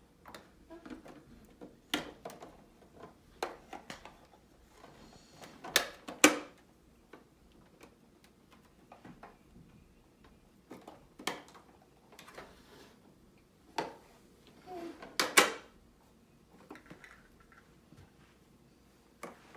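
Irregular clicks and knocks of plastic toy pots, pans and play food being handled on a plastic toy kitchen, with quiet gaps between them and the loudest knocks about six seconds and about fifteen seconds in.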